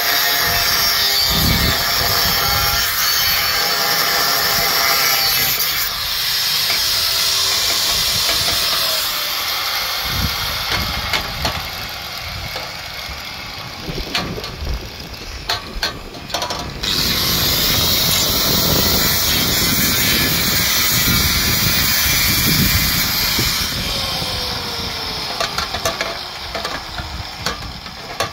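Angle grinder cutting through steel exhaust pipe in two long runs, each ending as the disc winds down with a falling whine; between them, scattered knocks and clinks of the pipes being handled.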